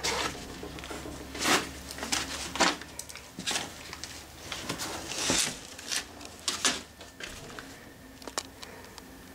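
Scattered light knocks, clicks and rustles of someone moving about in the small, hollow cabin of a fiberglass catamaran, with a few louder scuffs.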